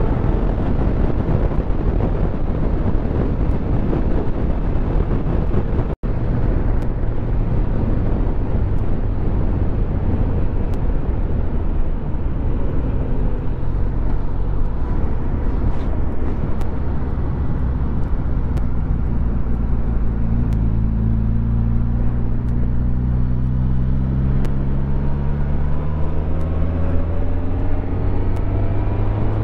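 Suzuki GSX-S1000GT's inline-four engine running under way, with wind rush on the microphone. About six seconds in the sound cuts out for an instant, then the engine note holds steady before climbing in pitch as the bike accelerates, levelling off near the end.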